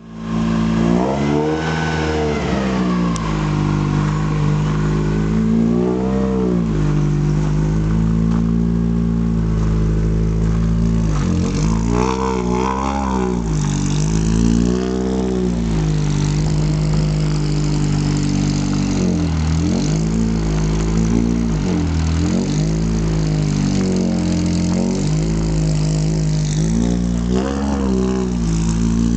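Race-prepared Peugeot 206's four-cylinder petrol engine idling, blipped several times so the note rises in revs and drops back to idle.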